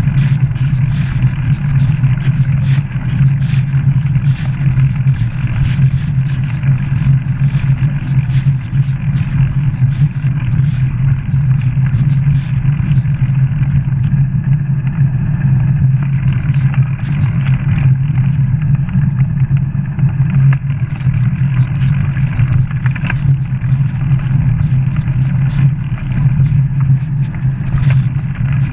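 Bicycle riding along a paved path, picked up by a camera worn on the rider: a steady low rumble of wind and ride vibration on the microphone, with frequent small rattling clicks.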